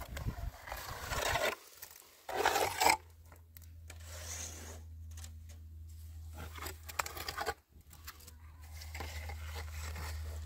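Steel trowel scraping wet cement mortar across a cinder-block wall in several uneven strokes, the loudest about two and a half seconds in, over a steady low hum.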